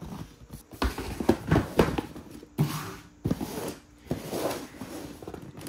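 Cardboard boxes handled by hand: a shoebox pulled out of a corrugated shipping carton and set down, with scraping and rustling and several sharp knocks.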